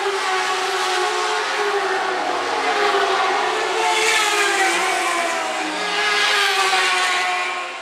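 Lightning sprint cars' high-revving motorcycle engines at race speed, several cars at once. The pitch rises and falls as they pass, loudest about four and six and a half seconds in, and the sound fades just before the end.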